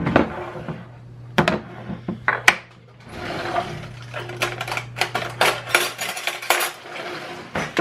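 Metal kitchen utensils clinking and rattling as a hand rummages through a utensil drawer, after a few separate knocks.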